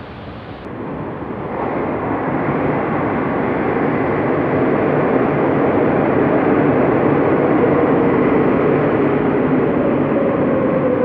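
Madrid Metro Serie 8400 electric train pulling into an underground station platform. The running noise swells about one to two seconds in as the train enters, then holds loud and steady. Near the end a whine falls slowly in pitch as the train slows.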